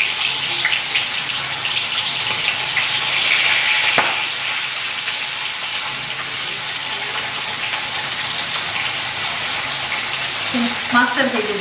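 Small topse (mango) fish sizzling and crackling as they go into hot oil in a wok: a steady, dense frying hiss sprinkled with fine crackles.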